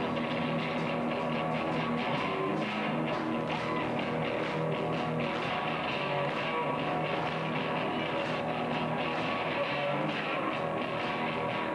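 Live rock band playing heavy-metal style: electric guitars and a drum kit, with steady cymbal and drum hits.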